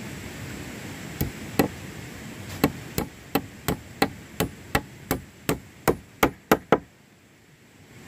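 About fifteen sharp blows of a hand tool striking wood. Two spaced strikes come first, then a steady run of about three a second that quickens slightly and stops abruptly about seven seconds in.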